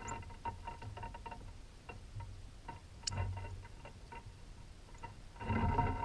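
Northern cardinal landing and shifting about on the metal feeder pole right beside the camera: irregular clicks and scratches of its feet and bill on the pole and clamp, with a louder flurry of wing flaps and metallic rattling about five and a half seconds in.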